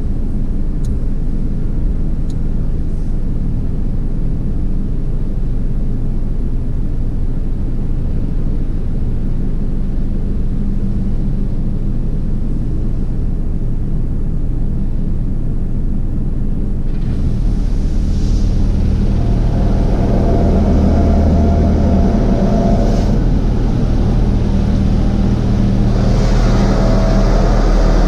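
Automatic drive-through car wash machinery running with a steady low rumble. About two-thirds of the way through, a louder hiss with a whining tone from the wash equipment comes in, and it swells again near the end.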